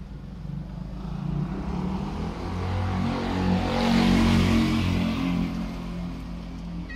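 A motor vehicle's engine runs with a steady low hum. It grows louder, peaks about four seconds in, then fades again, like a vehicle passing by.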